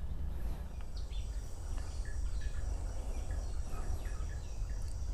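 A steady high-pitched insect drone with short bird chirps scattered through it, over a low rumble.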